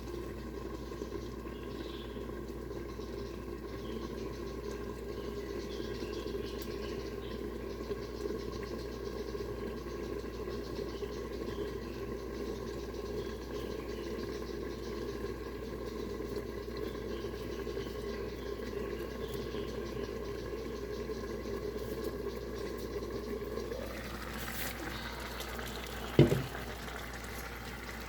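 Covered pot of rice porridge simmering on the stove, bubbling steadily. Near the end the bubbling grows brighter, and a single sharp clank follows.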